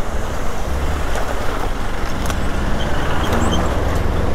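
Hero XPulse 200 dirt bike's single-cylinder engine running steadily as the motorcycle rides along the trail.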